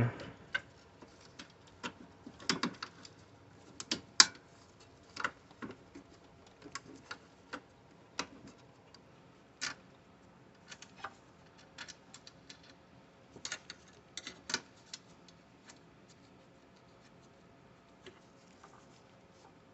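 Scattered small clicks and taps of hand work on a laser engraver's gantry as the X-axis stepper motor's wire harness is plugged back in and its screws are driven back in. The taps come irregularly and thin out in the last few seconds.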